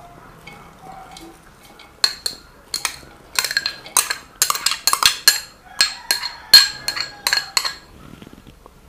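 Metal spoon clinking against a glass bowl as chopped onions are scraped out of it into an aluminium pressure cooker. A rapid run of sharp, ringing clinks, about three a second, starts about two seconds in and stops near the end.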